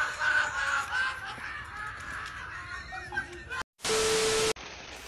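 A person's high voice laughing for about three seconds. Then comes a short gap, followed by a sudden loud burst of TV-static hiss under a steady beep tone, about four seconds in, which cuts off abruptly.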